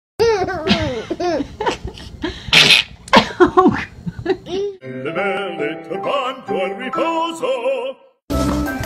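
A baby laughing and squealing in short bursts, with one loud breathy burst about two and a half seconds in. From about five seconds in, a tune with held notes plays while the baby's squeals go on over it, and near the end it cuts to a different piece of music.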